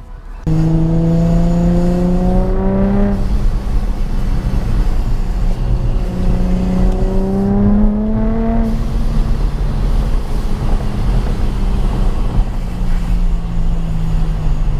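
Car engine accelerating hard: its pitch climbs twice and drops back at each gear change, then settles into a steady cruise.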